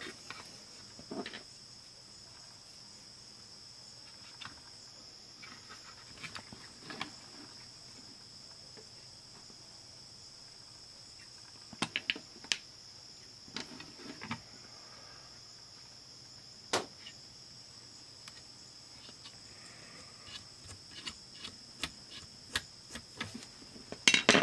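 Scattered small clicks and taps of fingers and a small tool handling the plastic chassis and tape mechanism of a Panasonic RQ-V51 portable cassette player during a drive-belt change. Behind them runs a steady high-pitched tone.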